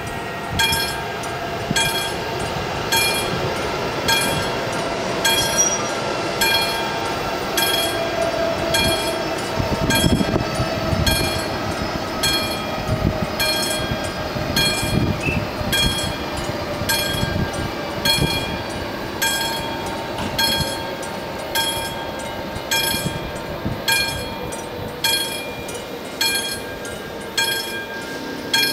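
AŽD 71 level-crossing warning bell ringing in steady, evenly spaced strikes, about four every three seconds. Under it a train rumbles on the line, loudest midway and then fading.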